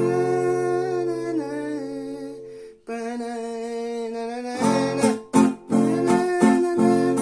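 A man singing a slow melody over an acoustic guitar: a strummed chord is left ringing under the voice, a note is held for a couple of seconds, then the waltz strumming pattern starts again about four and a half seconds in.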